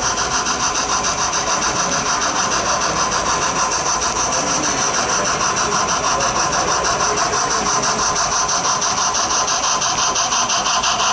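Large-scale model steam locomotive running past with its sound system chuffing steadily, about five even beats a second with a hissing edge.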